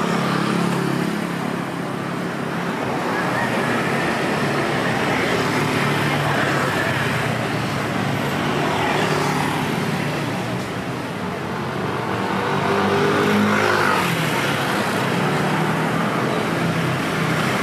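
Street traffic: the steady noise of vehicle engines running and passing close by, swelling a little past the middle, with faint voices in the mix.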